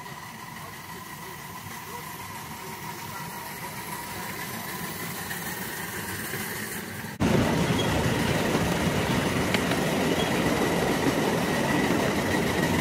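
A small vertical-boiler steam locomotive on a miniature railway running along the track, slowly growing louder. About seven seconds in the sound cuts abruptly to a louder, closer noise of the train heard from on board behind the engine.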